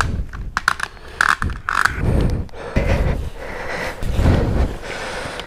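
Irregular knocks, clicks and scrapes of gear being handled and moved about, with the echo of a small room; no engine is running.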